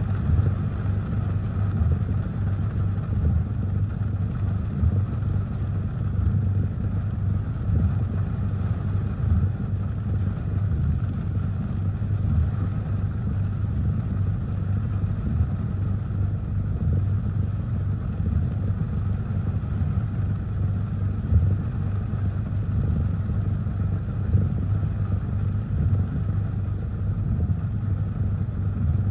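Car engine idling, heard from inside the cabin as a steady low hum, with rain and gusty wind on the car as an even hiss over it.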